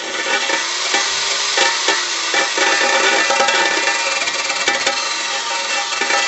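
Wire brush turned slowly by a power tool, scrubbing the sharp burrs off a thin steel lawnmower deck: a steady scratchy hiss with many small ticks and a faint motor whine underneath. It starts right after a cut.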